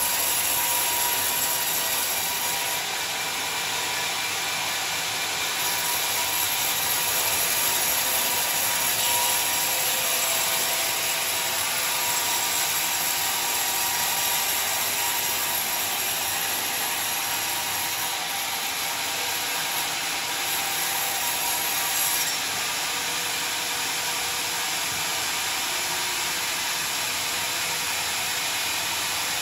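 Sawmill band saw cutting lengthwise through a rotten johar log: a steady hiss of the blade in the wood over the running machine.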